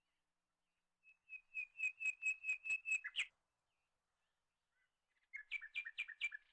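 A bird singing: a run of about nine quick, clear repeated notes lasting about two seconds, then after a pause a shorter run of about five.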